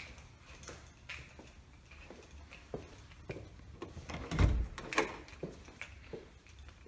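A hinged door being opened: a dull thump about four and a half seconds in, with latch and handle clicks just after it, among scattered light clicks and taps.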